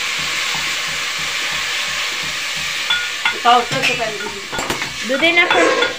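Water poured into a hot pot on a wood-fired clay stove, hissing and sizzling steadily for about three seconds before dying down.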